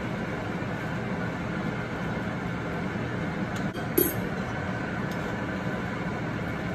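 Steady sizzle of potato fries frying in hot oil in a pan, over the steady hum of a running fan. A metal slotted spoon clinks sharply against the pan once, about four seconds in, with a few lighter taps around it as the fries are turned.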